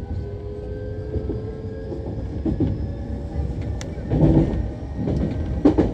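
Nankai 8000-series and 1000-series electric train running, heard from the cab: a steady rumble of wheels on rail with a steady whine. From about four seconds in, the wheels clatter and knock over points.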